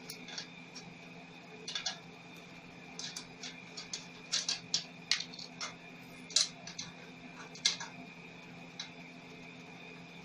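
Irregular sharp clicks and clacks of welding cables, clamp and electrode holder being handled and connected to the welding machine, over a steady electrical hum.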